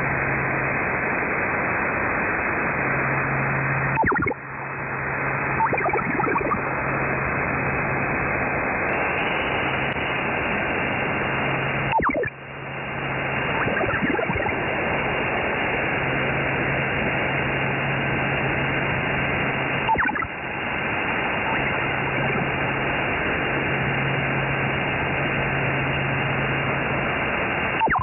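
Shortwave radio receiver tuned to 8120 kHz giving a steady band-limited hiss, with a brief sweeping tone every eight seconds, each followed by a short dip in loudness. A low hum keeps switching on and off underneath.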